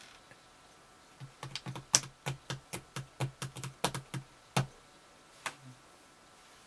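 Sculpting tools and hands working a clay figure: a quick run of about fifteen sharp clicks and taps over some three seconds, then one more. This is the workbench's own sound, sped up with the footage.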